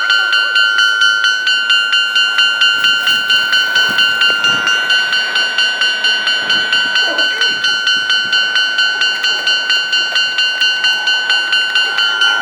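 Japanese railway level-crossing warning bell ringing: an electronic tone struck in rapid, even repeats, about three a second, sped up by double-speed playback.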